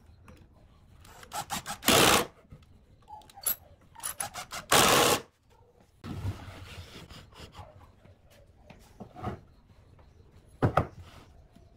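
Cordless impact driver driving a screw into a wooden board joint, in two short loud runs, each after a few quick blips of the trigger. Afterwards a few sharp wooden knocks as boards are set down on a wooden workbench.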